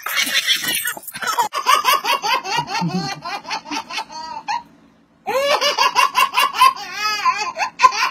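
Baby's belly laugh in quick repeated bursts, breaking off for a breath about halfway through and starting again, after about a second of rushing noise at the start.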